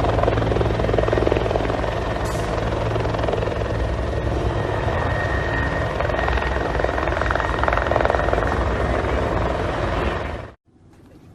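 Helicopter running steadily overhead, a dense low beating of rotor and engine. It cuts off abruptly near the end.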